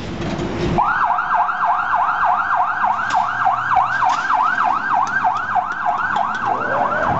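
Federal Signal PA-300 electronic siren on a fire department pickup sounding a fast yelp, a rising-and-falling wail repeating about three and a half times a second. It cuts in about a second in, over the sound of the vehicle moving off.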